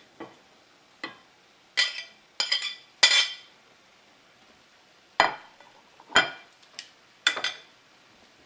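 A metal utensil clinking and scraping against a pan and dish about ten times at uneven intervals, as cooked steak pieces are put back into the pan.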